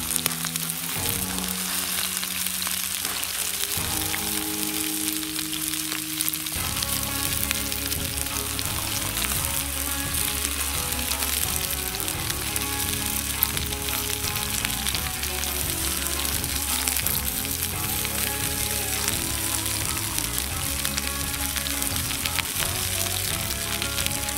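Meat sizzling over an open flame: a steady, dense crackling hiss. Background music with long held notes runs underneath.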